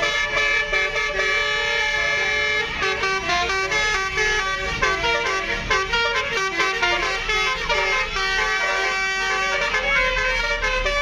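Bus telolet horns, the multi-trumpet musical air horns of Indonesian tour buses, playing quick changing toots, several tunes overlapping as the buses sound against each other.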